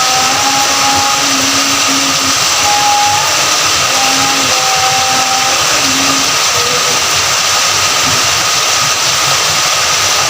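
Steady rainfall, an even, constant hiss of falling rain, with faint tones coming and going underneath.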